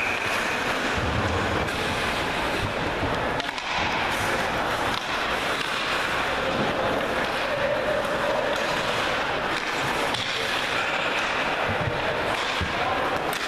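Steady background noise of an ice rink during a hockey game, with a few sharp knocks.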